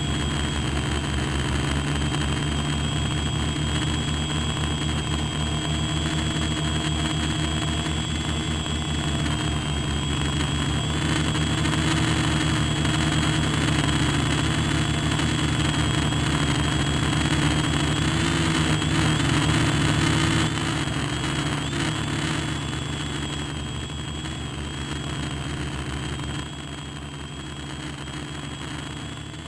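RC model aircraft's motor and propellers running steadily, heard right at the on-board camera: a continuous buzzing hum with a thin high whine over it. The sound swells slightly midway and drops to a lower level about 26 seconds in.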